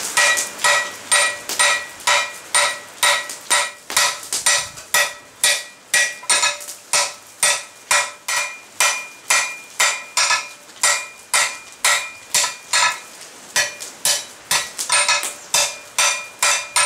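Hand hammer striking red-hot 25 x 12 mm flat steel bar on an anvil in a steady rhythm of about two blows a second, each blow ringing briefly. The smith is drawing the bar down to about half its thickness.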